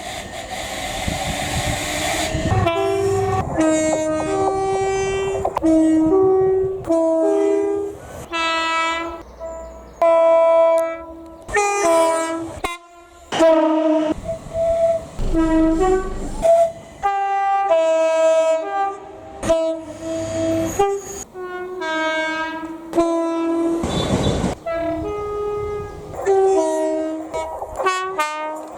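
Train's two-tone air horn sounding a long string of short blasts, swapping back and forth between a low note and a high note, with dozens of blasts in a playful tune. Before the first blast there are a couple of seconds of train running noise.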